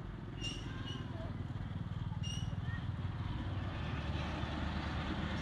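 A motorbike engine running steadily close by, its low pulsing rumble growing slowly louder. A few short high chirps sound over it in the first half.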